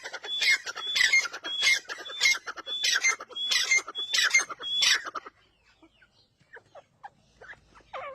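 A teetar (francolin) calling: a loud, fast, even series of sharp notes, about two a second, that stops about five seconds in and is followed by a few faint chirps.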